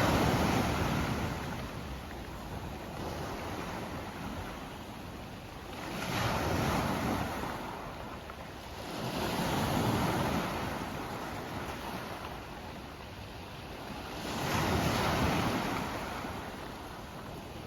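Sea waves washing in on a beach of round pebbles, in slow surges: one as it begins, then about 6 s, 10 s and 15 s in, each swelling and ebbing away.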